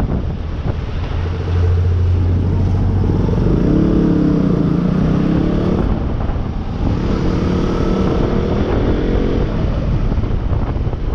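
Motorcycle engine running on the road, its pitch rising and falling as the revs change.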